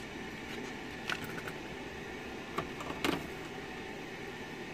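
A few light clicks and taps of small plastic instrument-cluster parts being handled on a workbench, the loudest about three seconds in, over a steady background hiss.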